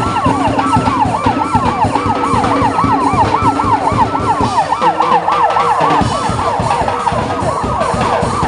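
Electronic siren on a parade escort vehicle sounding a fast yelp, its pitch rising and falling about three to four times a second, with a low rumble underneath.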